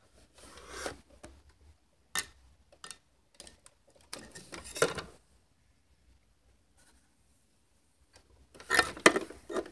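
Handling noise as the opened projector and the phone are moved about: irregular rubbing and scraping with a sharp click about two seconds in, loudest near the end.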